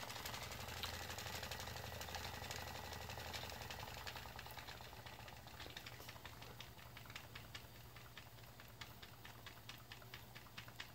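Stuart Williamson Brothers model vertical steam engine running on live steam, its flywheel spinning fast. Its valve gear and crank make a quiet, rapid, even ticking over a low steady hum, and it runs rather sweetly.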